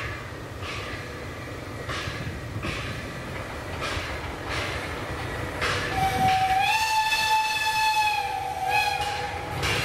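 Steam locomotive working, its exhaust chuffing about once a second, then one long whistle blast starting about six seconds in and lasting some three and a half seconds, rising a little in pitch as it opens and sagging as it closes.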